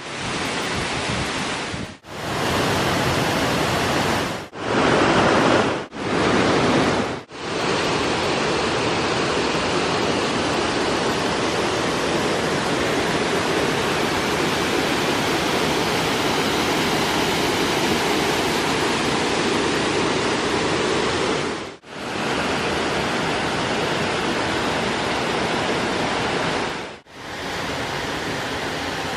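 A waterfall pouring steadily, a dense, even rush of falling water. The sound drops out for a moment six times where separate shots are joined, with the level shifting slightly from shot to shot.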